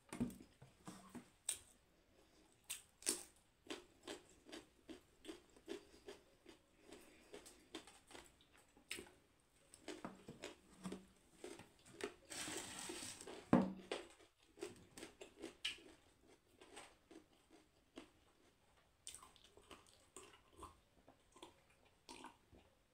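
Close eating sounds: chewing and crunching of noodles and raw carrot slices, with many small sharp clicks and mouth smacks. There is a longer hissing slurp about halfway through.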